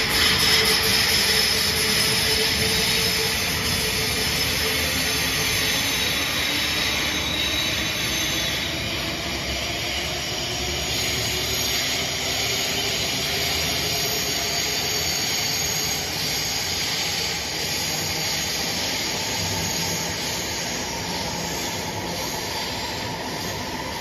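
SBB Re 460 electric locomotive in its original, unmodernised form accelerating away, its GTO traction converters and motors whining in several tones that rise slowly in pitch over a steady hiss of cooling blowers and rolling coaches, fading slightly near the end.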